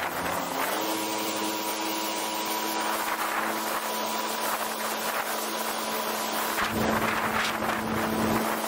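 Yamaha WaveRunner XL700's two-stroke twin running at speed across open water, its note rising near the start and then holding steady, with wind on the microphone and the hiss of spray and wake. The low rumble grows louder for the last couple of seconds.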